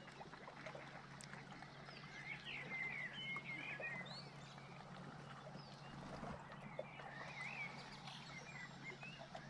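Small birds chirping and twittering in quick, wavering calls, a run of them a couple of seconds in and again later on, over faint outdoor background noise.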